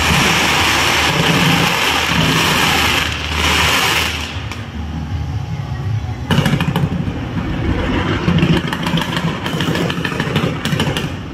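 Fireworks going off: a dense hissing spray for the first four seconds or so, then a second volley from about six seconds in, with rapid crackling pops over a low rumble.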